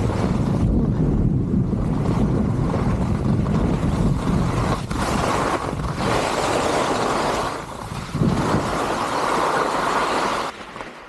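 Wind rushing over an action-camera microphone, with skis hissing and scraping over the snow of a piste on a fast descent. The scraping swells louder twice in the second half, and everything drops off sharply near the end.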